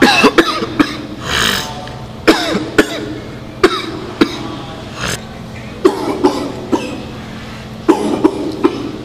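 A person beatboxing with hands cupped over the mouth: sharp mouth-made drum hits in short, evenly repeating groups over a low hummed tone, with one breathy hiss about a second in.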